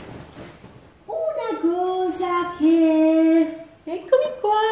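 A woman singing a short wordless tune to herself, a few long held notes starting about a second in, with a brief pause before the last phrase.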